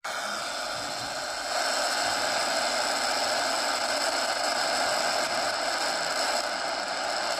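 Steady static hiss from the AudioCrazy AC-Q1AR portable receiver's speaker, tuned to no station on the shortwave band. It gets louder about one and a half seconds in.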